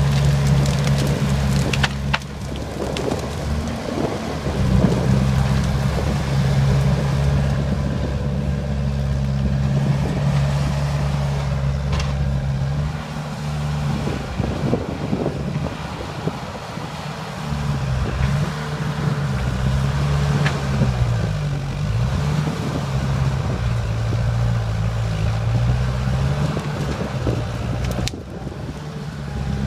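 Small crawler bulldozer's diesel engine running steadily under load, its pitch dipping and rising in the second half as it pushes into the stump and brush. A few sharp cracks are heard, scattered through.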